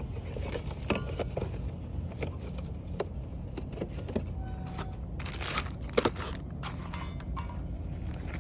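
Camping gear being handled: scattered clicks, light clinks and rustling, with a cluster of louder knocks and rustles about two-thirds of the way through, over a steady low rumble.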